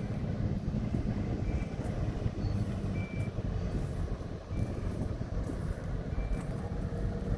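Heavy machine's engine running steadily, with a short high-pitched reversing warning beep sounding every second or two.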